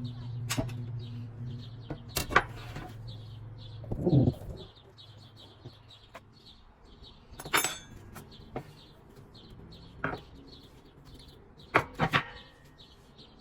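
Scattered knocks and taps of dough being rolled out and handled on a work surface, with a small bird chirping steadily in the background. A low hum runs under it and stops about four seconds in.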